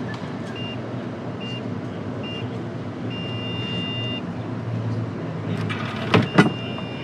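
Bike-share docking station keypad beeping as a ride code is keyed in: three short high beeps about a second apart, one per button press, then a beep lasting about a second. Near the end comes another long beep with two loud clicks, as the dock accepts the code and its light turns green. Steady traffic noise runs underneath.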